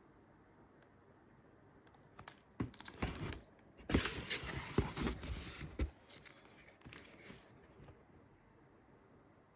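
Packaging being torn and crinkled: a run of crackling and tearing that starts about two seconds in, is loudest in the middle, and dies away after about seven seconds.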